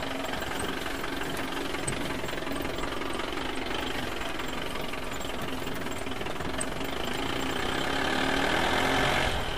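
Dubbed truck engine sound effect, running steadily with a knocking chug. It grows a little louder toward the end, then drops off just before the end.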